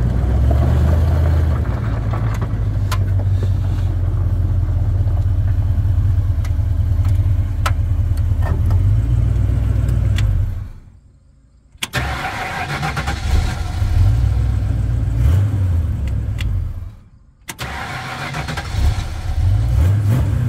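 1976 Ford Bronco's V8 idling, then going quiet about ten seconds in. It is restarted with the key and starts back up readily, stops again briefly a few seconds later and fires back up near the end. The engine had been laying down on the road, acting like it was running out of fuel, and the owner wonders whether the timing is off.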